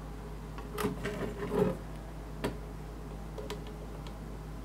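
Small plastic and metal clicks and a short rattle as a mechanical keyboard's PCB and plate are worked with needle-nose pliers during teardown. A cluster of clatter comes about a second in, then single sharp clicks twice.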